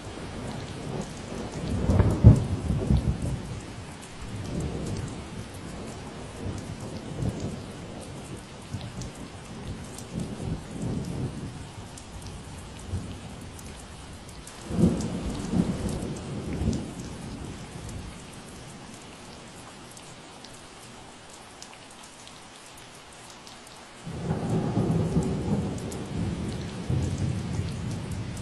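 Steady rain falling, with several deep rumbles that swell and fade: the loudest about two seconds in, and another that starts suddenly near the end.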